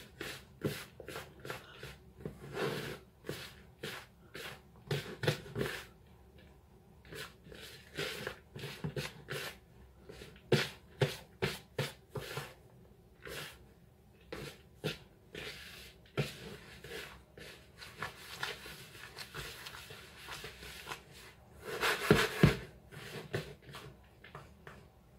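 Hands mixing grated cheese into a crumbly rubbed-in scone mix in a plastic bowl: irregular rustling and scraping strokes, with a louder flurry about 22 seconds in.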